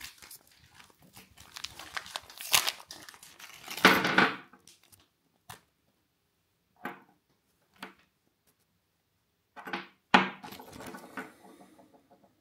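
Foil lure packet crinkling and tearing as it is opened, loudest about four seconds in. Then a few short, scattered rustles and light clicks as the soft plastic bait is handled.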